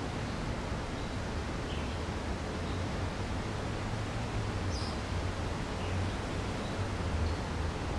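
Steady outdoor background noise with a low hum underneath, and a few faint, brief bird chirps, the clearest about five seconds in.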